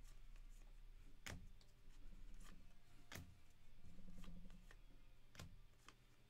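Trading cards being handled, giving a few light, sharp clicks a second or two apart over a faint low hum.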